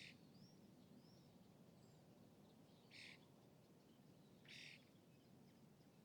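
Quiet lakeside ambience: a steady low, distant hum, with three short, harsh bird calls about a second and a half apart near the start and middle, and a few faint, thin chirps early on.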